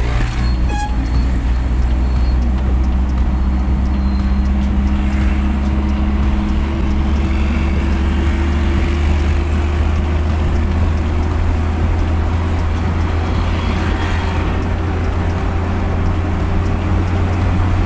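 Steady engine and road noise of a motorcycle riding along a highway, a low drone with a hum that slowly rises in pitch as it gathers speed.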